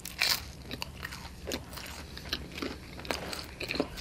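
Close-miked chewing of a mouthful of popover: a run of short, irregular mouth clicks and smacks, the loudest just after the start.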